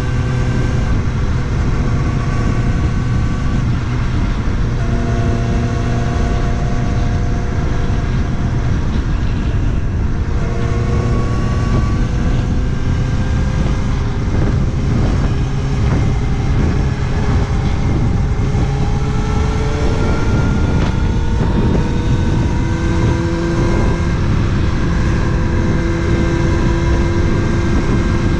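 Kawasaki Ninja ZX-6R inline-four engine running under way, over a steady rushing noise. The engine pitch mostly holds level, then climbs gradually past the middle as it pulls harder.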